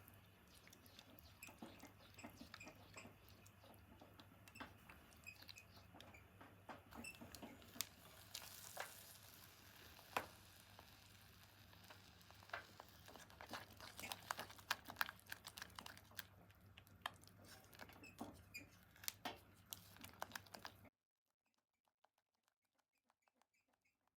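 Faint kitchen handling sounds: scattered light clicks, taps and rustles over a low steady hum, cutting off to silence near the end.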